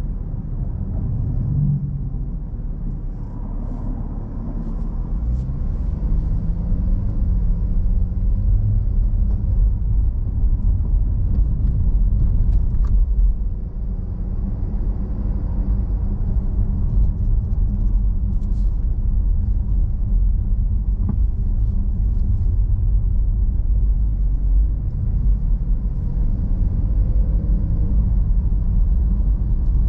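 Low, steady rumble of a car's engine and tyres on the road, heard from inside the car. The engine note rises and gets louder a few seconds in as the car picks up speed.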